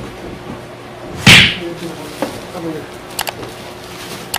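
Plastic wrapping on pressure washer parts being handled and pulled out of a cardboard box: a loud plastic swish about a second in, then a few light clicks later on.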